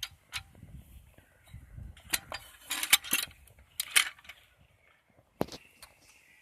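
Metal parts of a hand lever winch clinking and rattling as it is handled: scattered sharp clicks, a burst of clatter in the middle and one sharp knock near the end.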